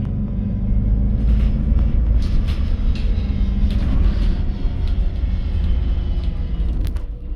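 Interior of a MAN Lion's City 12 EfficientHybrid CNG city bus on the move: a steady low rumble of engine and road, with scattered clicks and rattles from the cabin.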